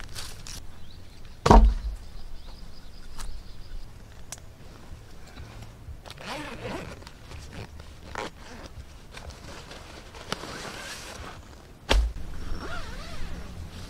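Camping gear being handled on grass: footsteps, and rustling of a nylon backpack and tent bag. Two heavy thumps stand out, the loudest about a second and a half in and another near the end.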